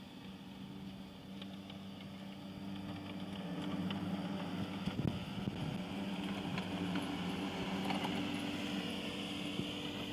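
Cab tractor with wide rotary mower decks, its engine running steadily while mowing grass, growing louder about three to four seconds in as it comes close.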